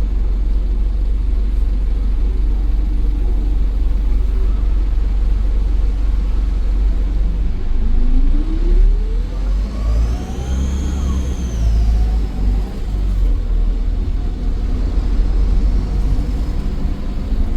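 Optare Versa bus's Daimler OM934 5.1-litre diesel running with a steady low rumble. About halfway through, the engine note climbs as the bus accelerates, and a high turbo whine rises and then falls away.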